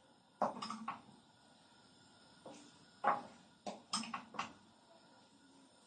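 A spoon scraping and knocking against a steel pan and a plate as cooked onion filling is scooped out: a few short clinks and scrapes, the loudest about three seconds in.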